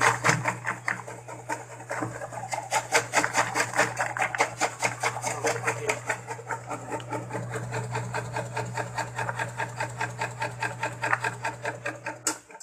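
Electric multi-function vegetable cutter dicing carrots and potatoes: a fast, even clacking of the cutting blades, about seven strokes a second, over a steady motor hum.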